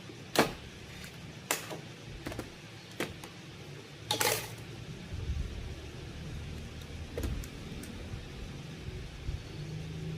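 Scattered sharp clicks and knocks a second or so apart, with a longer scraping sound about four seconds in, over a low hum.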